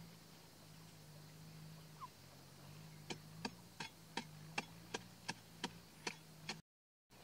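A wooden stick digging into the soil around a yam plant, a run of about ten sharp knocks at roughly three a second, beginning about three seconds in.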